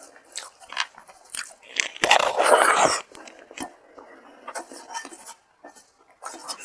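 Close-up eating sounds of a person chewing a mouthful of rice and hilsa fish curry, with wet smacks and small crunches. A louder noisy burst comes about two seconds in and lasts about a second.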